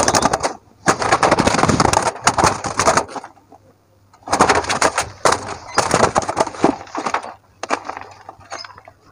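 A white dove's wings flapping hard against wire mesh as it struggles while being caught by hand: rapid clattering wingbeats in two long bouts with a short pause between.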